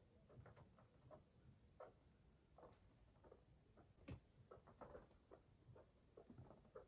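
Faint, irregular pattering and clicking of a Sheltie guinea pig's feet as it scurries about the floor, with one sharper click about four seconds in.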